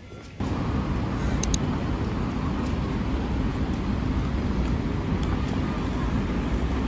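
Outdoor street ambience at a busy city road junction: a steady rumble of passing traffic that cuts in suddenly a moment in, with two short high clicks about a second and a half in.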